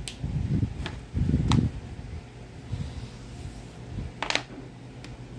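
Whiteboard being wiped with an eraser: a few rubbing strokes and bumps in the first two seconds, then a short sharp click about four seconds in.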